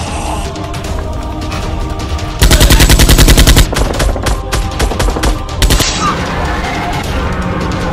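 Automatic gunfire sound effect: a fast burst of about ten shots a second lasting about a second, then scattered single shots, over background music.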